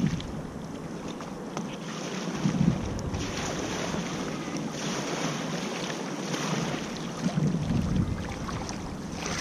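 Wind buffeting the microphone over open water, with small waves lapping and a few light splashes.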